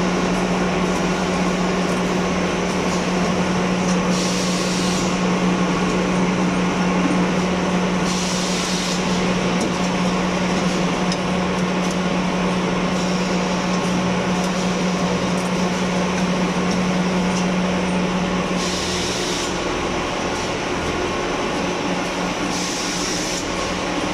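Automatic paper napkin folding and stacking line running: a steady machine drone under a constant hum, with short bursts of hiss four times.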